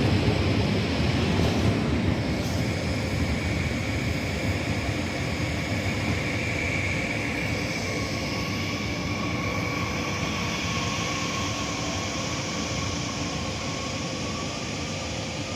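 Train running through the station: a steady rumble with a high whine over it, slowly fading.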